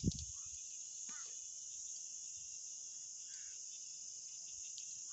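Steady high-pitched chorus of insects, crickets, in the grass. A brief low rumble right at the start.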